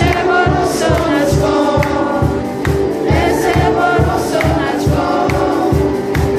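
Live praise-and-worship band playing: several voices singing together over keyboard, guitar and drums, with a steady beat.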